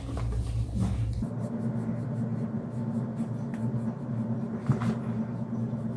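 Pen scratching on paper in short repeated strokes as lines are drawn, over a steady low hum that starts about a second in.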